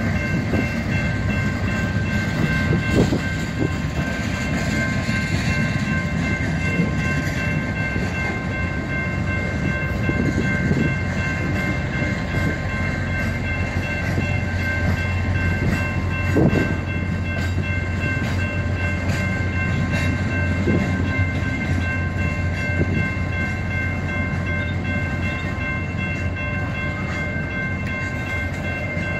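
Union Pacific freight train rolling slowly past, a steady rumble with a couple of sharp clanks from the cars, under several steady high-pitched tones.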